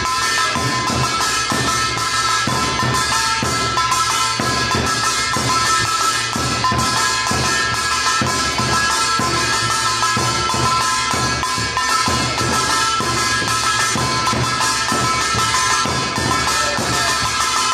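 Korean folk percussion playing a fast, steady rhythm of drum strokes, with a few steady ringing tones held over it.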